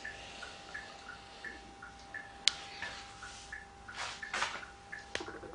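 Car turn-signal flasher ticking in an even two-note tick-tock, about three ticks a second, over a faint steady hum. A sharp click comes about two and a half seconds in, and a couple of short scuffs follow a little after.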